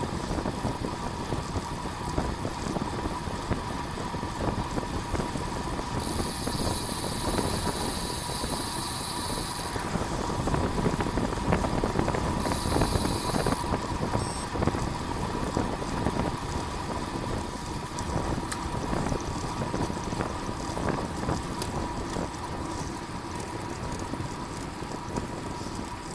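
Steady wind rush and road rumble on a racing bicycle's camera microphone while riding at time-trial speed. A high hiss comes in twice, for about four seconds and then about a second.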